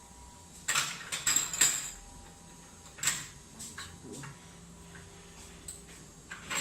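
Sharp metal clinks and knocks from spindle parts and tools being handled during a bearing replacement: a quick cluster about a second in, a single clink near three seconds, then a few lighter taps.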